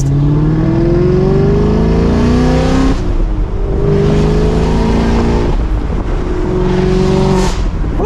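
Chevrolet Camaro SS's 6.2-litre V8 with a modified, louder exhaust, accelerating through the gears of its six-speed manual. The revs climb, drop at an upshift about three seconds in, climb again, and drop at another shift around five and a half seconds in. It is heard with the convertible top down.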